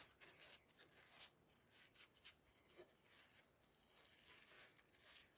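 Dry tobacco leaves handled and pressed flat on a wooden table: faint, irregular rustles and crackles of the brittle leaf under the fingers.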